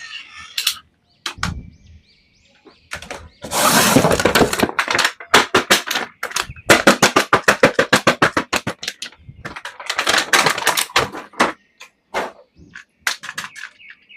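Plastic toys and packaging being handled: a run of sharp clicks and knocks, with two short bursts of rustling and a fast, even string of clicks in the middle.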